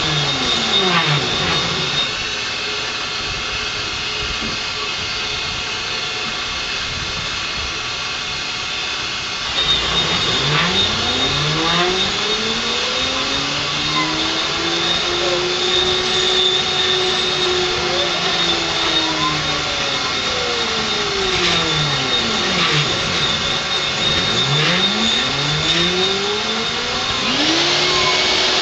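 CNC-converted Grizzly G0619 (SX3) mill running: a steady high spindle whine and the hiss of a 6-flute carbide end mill dry-cutting 6061 aluminum at 1800 rpm. Whining tones sweep up and down in repeated arcs as the axis motors drive the table around a circular pocket. It is quieter and steadier for the first several seconds.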